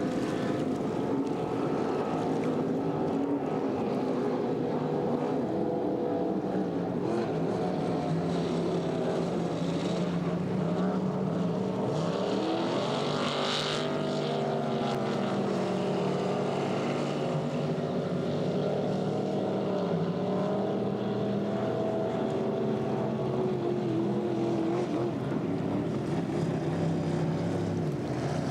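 Race boat engines running on the water, several at once. Their pitch rises and falls as they rev and pass, with a brief hiss about halfway through.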